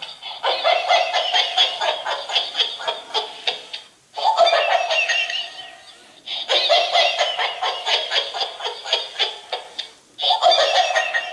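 Battery-powered plush laughing dog toy playing recorded giggling laughter through its small speaker as it rolls itself about. There are four fits of laughter, each starting loud and fading. The sound is thin, with almost no bass.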